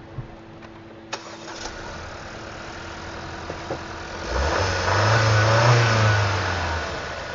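Car engine started, idling, then revved once and dropping back, running rough with a dead miss on cylinder one that the mechanics put down to a faulty engine control unit.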